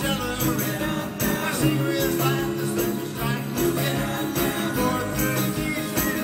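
Live rock band playing a 1960s-style hot-rod rock song: electric guitars, piano and drums, with lead and backing vocals.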